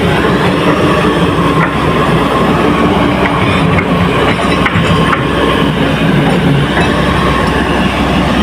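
Excavator working: its diesel engine runs loud and steady, with a few light clicks and clanks from the machine.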